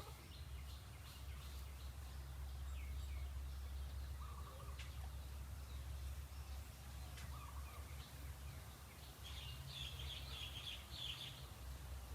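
Outdoor ambience: a steady low rumble with scattered faint bird calls, and a burst of high chirping a little before the end.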